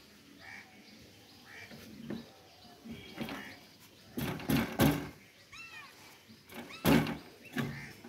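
Plastic outdoor-unit fan blade being worked off its motor shaft: a cluster of hard knocks and clunks about four to five seconds in and another loud clunk about seven seconds in.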